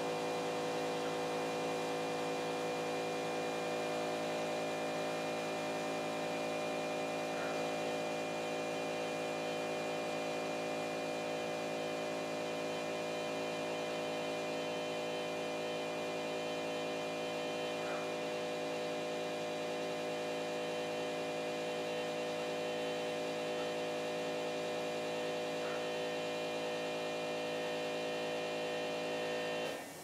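Steady electrical hum of a CNC pen-plotting machine's stepper motors and drivers while it draws with a fountain pen: many fixed tones held unchanged, with a faint short chirp now and then.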